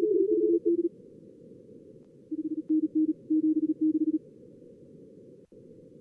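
Fast Morse code (CW) tones from a contest-practice simulator in narrow-band receiver hiss. Two signals at slightly different pitches overlap for the first second, then after a pause a single lower-pitched signal keys for about two seconds. There is a click near the end.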